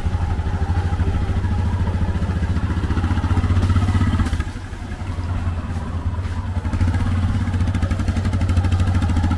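A small vehicle engine running close by with a fast, even putter. It eases off briefly about halfway through, then picks up again.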